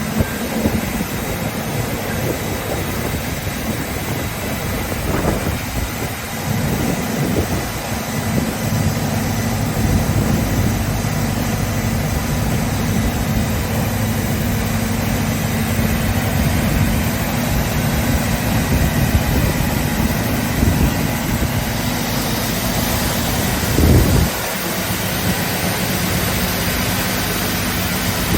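OTT Omega 110 wide-belt sander running, a steady machine hum with a broad hiss that grows brighter in the last quarter, and one short thump near the end.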